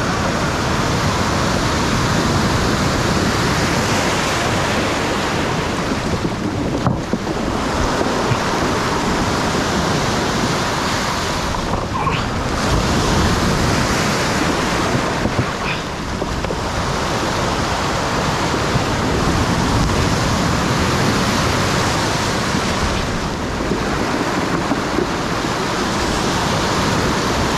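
Rough sea surf: waves breaking and washing in continuously, a loud steady rush of water.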